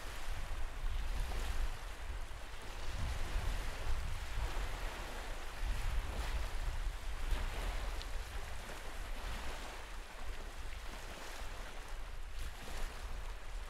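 Small wind-driven waves breaking and washing up a sandy lake shore, the wash swelling and easing every second or two. Under it, wind buffets the microphone in a steady low rumble.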